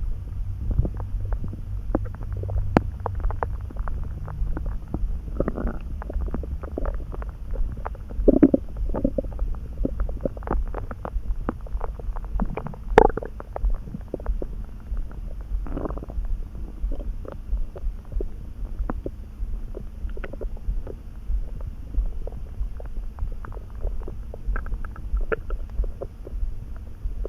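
Human stomach rumbling and gurgling: a steady low rumble with many small pops and clicks. A few louder bubbling gurgles come through, the sharpest pop about halfway through.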